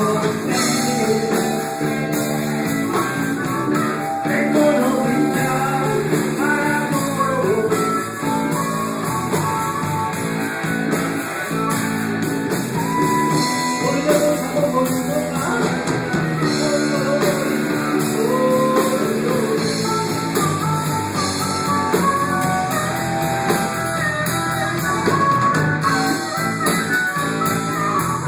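Live band music: an instrumental passage with a melodic lead line over bass and drums.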